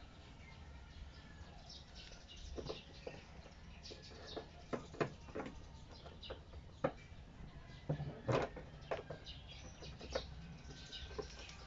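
Small plastic clicks and taps as an LED fender side signal lamp is pressed and worked into its mounting hole in the car's fender, scattered irregularly, with a louder cluster about eight seconds in.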